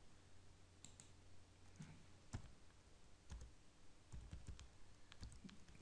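Faint, scattered clicks of a computer keyboard and mouse as a number is typed into a spreadsheet cell, over a low steady hum.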